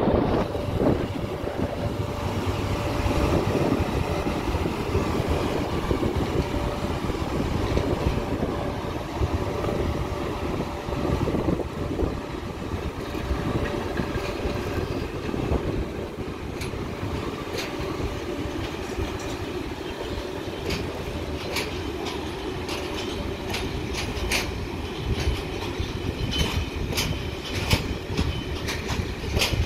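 A VR Sr1 electric locomotive hauling container wagons past, with a steady rumble of wheels on rail. Sharp wheel clicks over the rail joints come thick and fast in the second half.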